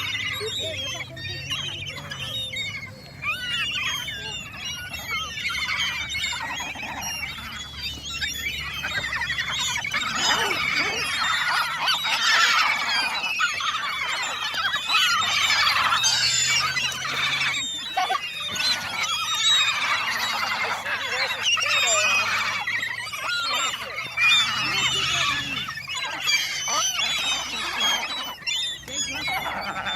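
A flock of birds calling, with many short calls overlapping in a continuous chatter that grows denser partway through.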